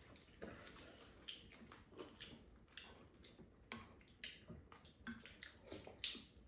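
Faint eating sounds: scattered small clicks of spoons and chopsticks against bowls and a frying pan, with chewing.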